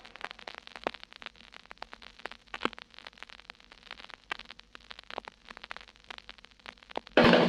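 Vinyl LP surface noise in the silent band between tracks of a 1963 Columbia stereo pressing: scattered clicks and pops over a faint crackle and low rumble. The next song's music starts abruptly near the end.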